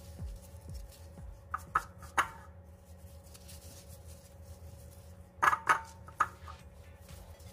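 Seasoned raw chicken thighs being handled in a cast-iron skillet with gloved hands, giving a few short, sharp knocks against the pan, about two seconds in and again around five and a half seconds in.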